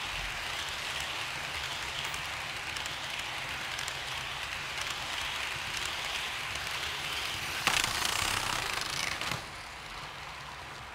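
HO-scale model train running past on the track, a steady whir of motor and wheels with faint clicks. It gets louder for about a second and a half near the end, then drops to a quieter whir.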